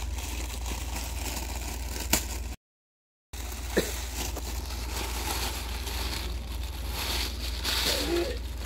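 Plastic packaging rustling and crinkling as a plastic-wrapped bag is handled, with a few short clicks, over a steady low hum. The sound cuts out to silence for under a second about two and a half seconds in.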